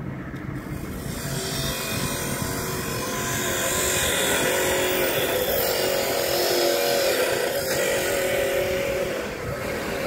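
A road vehicle passing close by: a rush of tyre and engine noise that swells over a few seconds, holds with a wavering hum through the middle, and eases off near the end.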